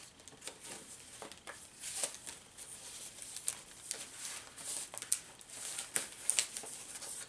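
Paper rustling and crinkling as the pages and tags of a handmade paper journal are handled and turned, with scattered light ticks and taps.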